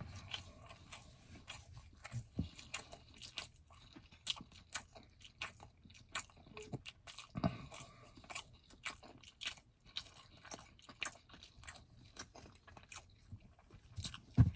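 A person chewing a mouthful of food with lips closed, close to the microphone: a stream of irregular wet mouth clicks and smacks, several a second.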